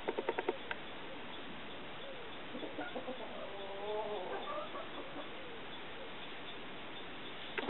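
Domestic turkeys: a rapid series of clucking pulses ends about half a second in, then a soft wavering call follows a few seconds in, over a steady hiss.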